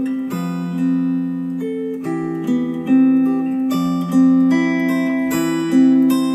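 Acoustic guitar music played back through Elac DBR62 bookshelf speakers driven by a Rega Brio amplifier, with plucked notes and chords ringing out and changing every second or so.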